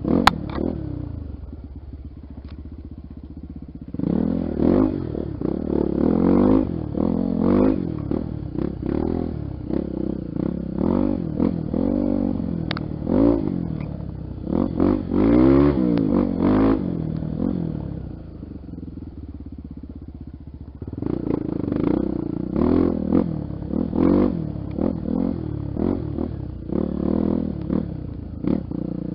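Honda XR 250 Tornado's single-cylinder engine on a trail, revved up and down again and again as the throttle is worked, with easier low-revving stretches a few seconds in and about two-thirds of the way through.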